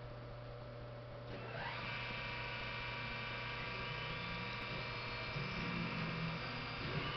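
Spindle motor of an EMCO PC Mill 125 benchtop CNC mill spinning up, rising in pitch about a second and a half in, then running with a steady whine over a constant low hum. A lower buzz comes and goes near the end.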